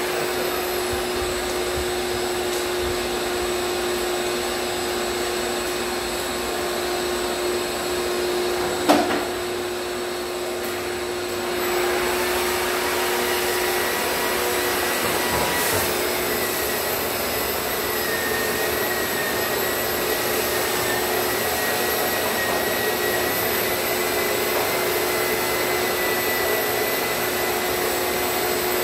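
Electric drywall sander and its shop vacuum running continuously, drawing dust from a popcorn ceiling through the hose. There is a steady hum, a single sharp knock about nine seconds in, and a high whine from about sixteen seconds in.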